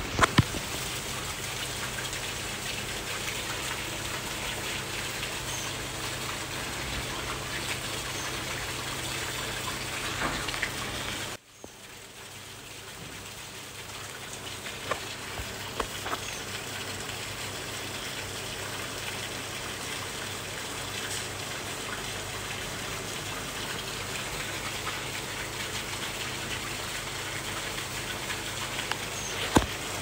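Steady rain falling on leafy garden plants: an even hiss with a few sharper drip taps. About eleven seconds in the sound cuts out abruptly, then swells back to the same steady hiss over a few seconds.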